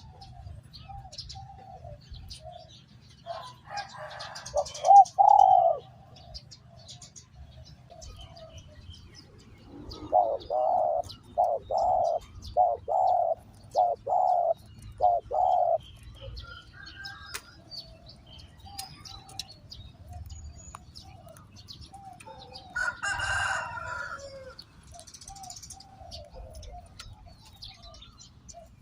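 Spotted doves cooing: soft scattered coos, a loud burst about five seconds in, and a run of about seven loud coos in a row between roughly 10 and 16 seconds. Late on there is a short rustling burst.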